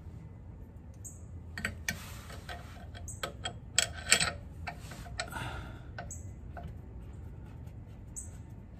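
Light metallic clicks and clinks of an ARP crank bolt being set into the centre of the balancer and threaded in by hand, with two sharper clicks about four seconds in.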